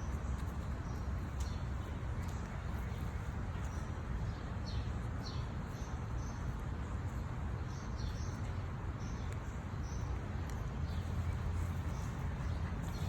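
Small birds chirping: short, high calls scattered through, some in quick clusters, over a steady low rumble.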